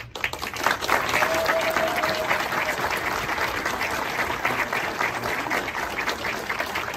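Audience applauding, a dense steady run of hand claps that starts suddenly. A brief held note sounds over it about a second in.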